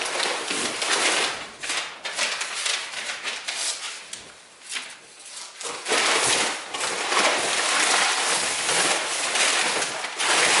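Crumpled brown packing paper rustling and crackling as it is pulled out of a long cardboard box, with cardboard flaps scraping. The rustling comes in patches at first and turns steadier and louder about six seconds in.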